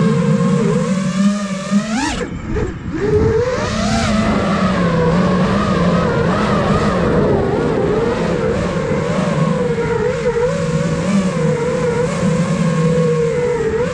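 Five-inch FPV quadcopter's brushless motors and propellers whining, the pitch rising and falling with the throttle. About two seconds in the whine shoots up, then falls away for about a second as the throttle is cut, and climbs back.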